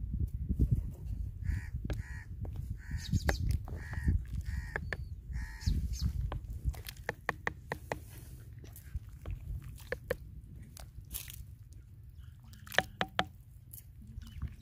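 Wooden ladle stirring and knocking against a clay pot of boiling soup, with scattered sharp clicks throughout. A bird calls about six times in quick succession during the first half.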